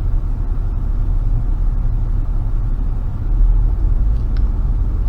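Car engine running steadily with a low rumble, growing slightly louder a little over three seconds in.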